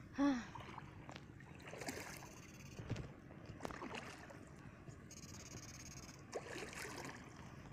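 Legs wading through shallow marsh water, with soft sloshing and splashing. A short voiced sound from a person about a quarter of a second in is the loudest moment.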